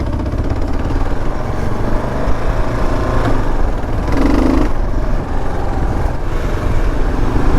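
A 650 cc single-cylinder dual-sport motorcycle engine running as the bike rides over rough, muddy trail, with a steady low rumble throughout.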